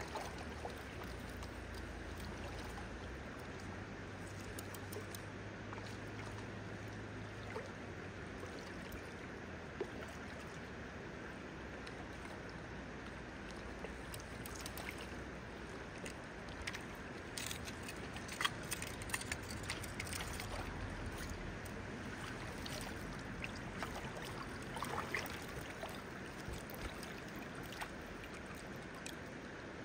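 Steady rush of a shallow river's flowing water, with a cluster of short, sharp splashes and knocks in the second half.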